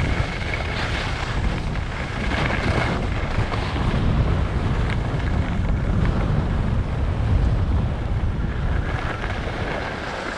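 Wind buffeting the microphone of a camera carried by a skier moving fast downhill, a steady low rumble with the hiss of skis sliding over groomed snow.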